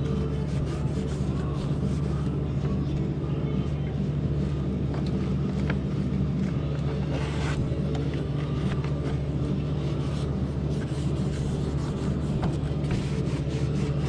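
A towel rubbing and scuffing over plastic and metal parts, with small knocks, as a snowmobile engine bay is wiped down. Under it runs a steady low machine hum.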